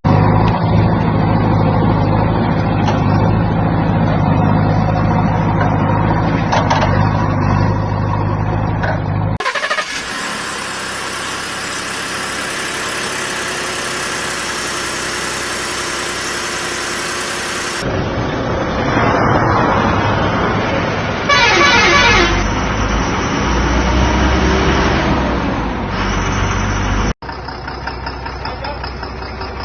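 Heavy vehicles running, with a horn sounding, across several cut-together clips. A steady pitched drone opens it, and the sound changes abruptly at each cut.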